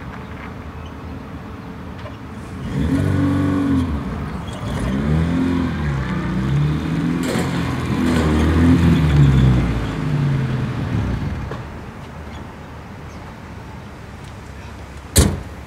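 Car engine revving up and down several times as the car pulls away and manoeuvres, then settling back to a lower steady run. A single sharp knock near the end.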